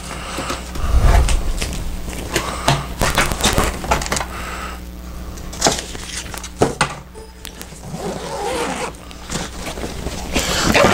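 Stiff black folding drawer panels being unfolded and handled: scraping and rustling with many short knocks and clicks, and a low thud about a second in.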